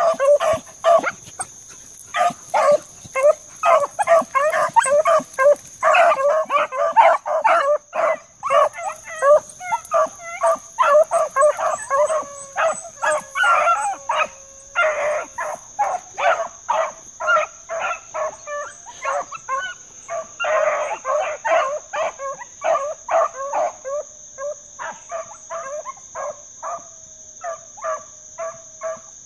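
A pack of hounds barking and bawling on a running trail, several dogs at once, with quick short calls overlapping one another.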